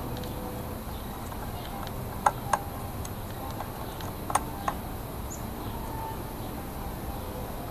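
Two pairs of sharp small clicks, a couple of seconds apart, from a hand tool and fingers working on a gauge in a plastic instrument-cluster housing. Steady faint background hiss throughout.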